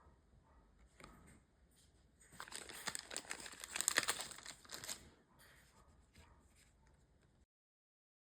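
Foil Pokémon booster pack wrapper crinkling as it is torn open by hand. The crackling builds from about two seconds in and is loudest near four seconds, with a few lighter rustles after. The sound cuts out entirely near the end.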